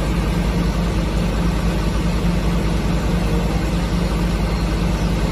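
Diesel engine of a crane lorry running steadily while its truck-mounted knuckle-boom crane is being worked.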